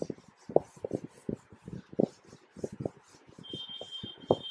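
Writing on a classroom board: an irregular run of short scratchy strokes and taps, several a second.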